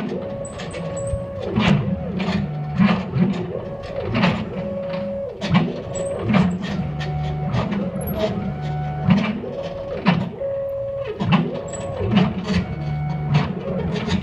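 ShopBot CNC router's stepper-driven axes running a cutting file in the air with no material, the motors whining at pitches that ramp up, hold level and ramp down again as each move speeds up and stops, with frequent sharp ticks between moves.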